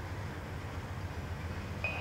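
Approaching CSX diesel freight locomotive running with a steady low rumble. A high steady tone cuts in just before the end.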